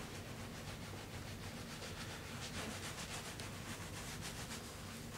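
A razor scraping through shaving lather and thick body hair on a man's back, in quick repeated short strokes, several a second.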